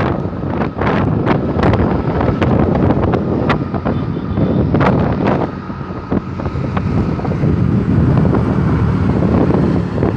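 Wind buffeting the microphone over passing road traffic, with a steadier engine hum setting in during the second half.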